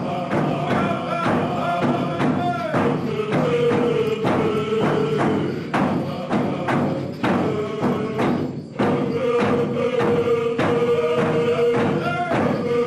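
Kwakwaka'wakw ceremonial song: voices singing together over a steady struck beat, about two beats a second.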